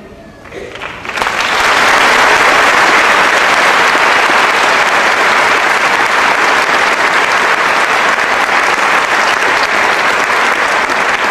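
Audience applauding: loud, steady clapping that swells in about a second in.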